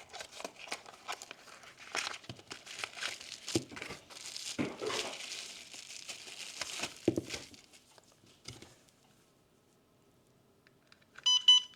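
Plastic packaging crinkling and tearing as a new LiPo battery pack is unwrapped, for about eight seconds. Near the end comes a short, loud electronic beep from a battery cell checker.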